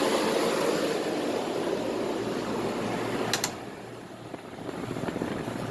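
A 2001 Carrier window air conditioner running on high cool, a little on the noisy side: a steady rush of blower air over a low hum. About three and a half seconds in there is a short click, and the air rush dips, then builds again.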